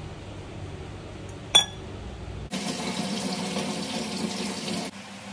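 A single sharp, ringing metal clink of a kitchen utensil, then about a second later water running, as from a kitchen tap, for a little over two seconds, starting and stopping abruptly.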